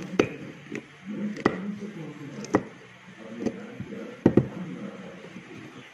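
Kitchen knife slicing ghost chillies on a wooden board: about seven sharp knocks of the blade striking the wood at uneven spacing, two of them in quick succession a little past four seconds in.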